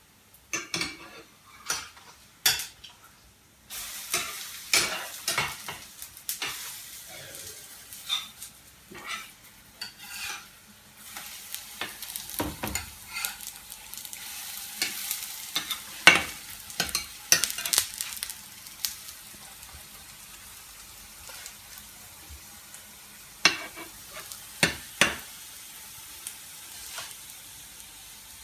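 Oladyi batter frying in plenty of hot oil in a frying pan, with a steady sizzle setting in about four seconds in. Over it come scattered clicks and taps of a metal spoon scooping batter from a metal bowl and of a spatula on the pan, thinning out in the second half.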